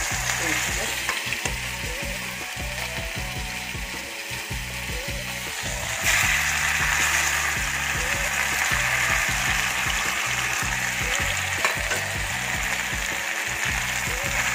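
Slices of boiled taro root sizzling as they are slid into hot mustard oil in a kadhai. The sizzle gets louder about six seconds in, as more pieces go into the oil.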